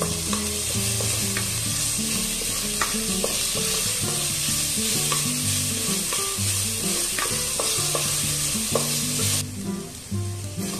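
Curry leaves, chopped green chillies and garlic paste sizzling in hot oil as a tempering for dal, stirred with a wooden spatula that scrapes and clicks against the pan now and then. The sizzle drops suddenly near the end.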